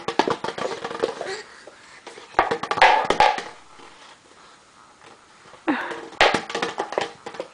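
Wooden kitchen cabinet doors and drawers rattling and knocking against their frames as a toddler tugs at the knobs, in three bursts of clatter with short pauses between.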